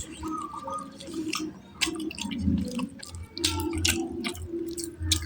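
Wet, close-miked eating sounds: chewing with many short, sharp mouth clicks and smacks.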